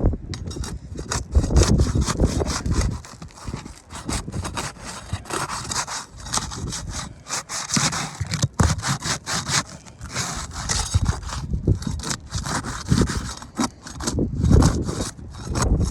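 Asphalt roof shingle being worked loose by hand: repeated irregular scraping, rubbing and crackling as it is pried up off the roof deck, with low rumbling handling noise a second or so in and near the end.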